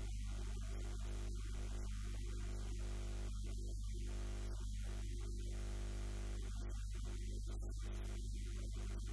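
Steady electrical mains hum: a low, unchanging buzz with a ladder of overtones above it and faint hiss.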